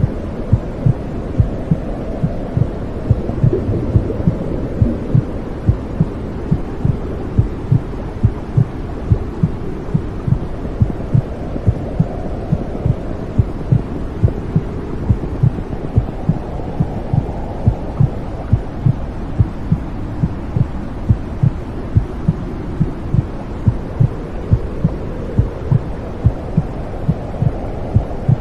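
Womb sound for soothing a baby: a heartbeat's low thumps, about two a second, over a steady low rumble.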